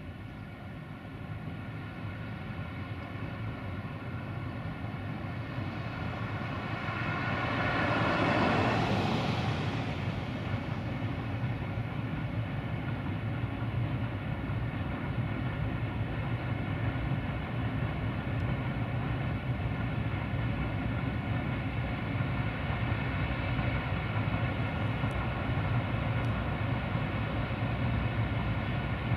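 Electroputere 060-DA (LDE2100) diesel-electric locomotive's Sulzer engine running steadily under load as its freight train approaches, growing slowly louder. A car passes on the road about eight seconds in, the loudest moment.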